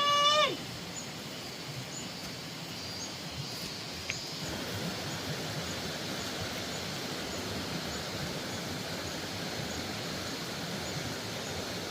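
Outdoor ambience: a steady hiss with faint high chirps repeating about twice a second, growing slightly louder about four seconds in. A long held call ends about half a second in.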